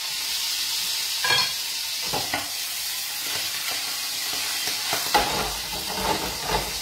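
Escarole frying in olive oil in a pan, with a steady sizzle. It is stirred with a wooden spoon that knocks and scrapes against the pan several times.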